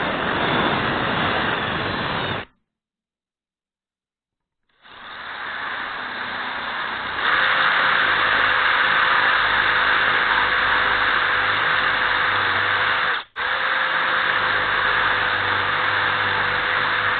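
Drilling machine boring out a stripped bolt hole in metal to take a steel thread insert: a steady whirring that cuts out for about two seconds, comes back, and grows louder with a steady hum about seven seconds in. It breaks off for an instant near the end.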